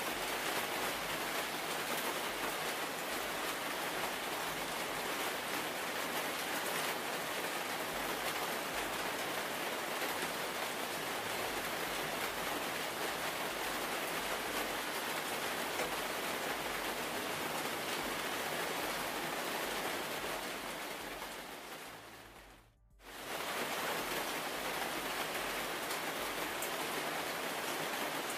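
Steady rain falling, a continuous even hiss. About 20 seconds in it fades away, drops to silence for a moment, then comes back as before.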